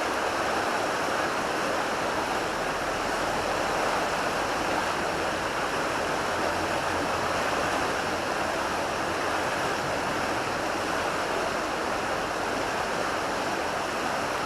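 Steady rush of flowing river water, an even, unbroken noise of current.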